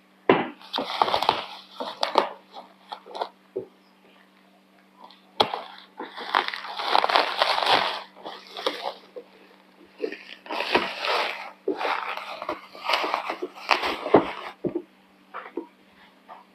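Clear plastic packaging crinkling and rustling as it is cut with scissors and pulled off a boxed knife set, in three bouts separated by short lulls. A steady low hum runs underneath.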